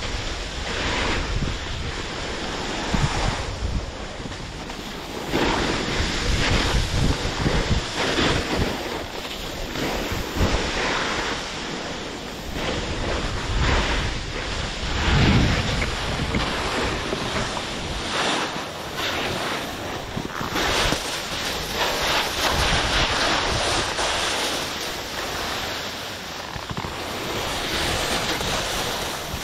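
Wind buffeting the microphone while skiing, rising and falling in gusts, over the steady hiss of skis sliding on snow.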